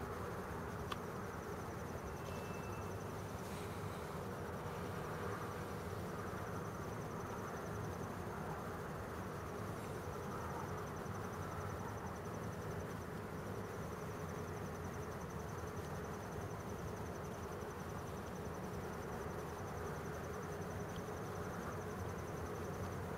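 A cricket trilling continuously on one high pitch, breaking off briefly a couple of times, over a steady low hum.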